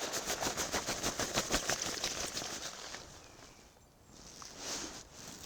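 Close, dense rustling and crackling for about three seconds as the camouflaged drop rig is uncovered and handled, then quieter with a soft brushing sound near the end.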